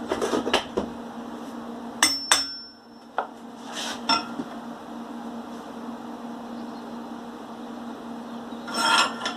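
Steel forge-burner parts being handled and tapped while being levelled in a vise: scattered metallic clinks, two sharp ringing knocks about two seconds in, and a short clatter near the end.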